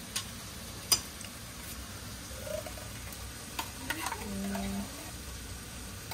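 Food sizzling in a pan on the stove, with a utensil stirring and clicking against the pot a few times.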